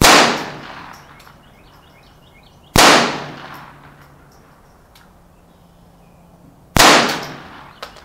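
Three .22 LR rifle shots from a Marlin Papoose semi-automatic firing CCI Blazer high-velocity rounds. Each is a sharp crack with a short echo dying away over about a second, the second shot nearly three seconds after the first and the third about four seconds later.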